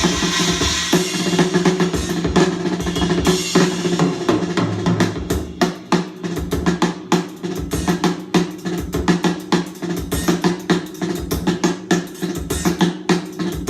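Recorded music with a busy drum-kit beat, bass drum and snare hits over a steady bass line, played through Elac Debut B6.2 bookshelf speakers and picked up by a phone microphone.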